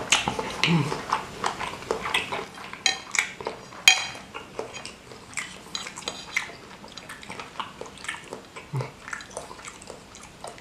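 Spoon and fork clinking and scraping against a bowl as a giant stuffed meatball in chili broth is cut apart. There are many short clicks, and a few ringing strikes come about three to four seconds in.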